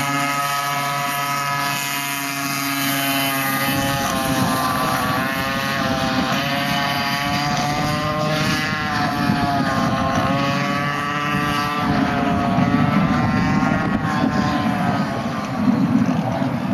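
Car engine in an autocross run: a steady note for the first few seconds, then revving up and easing off again and again, its pitch rising and falling every second or two, with a rushing noise underneath.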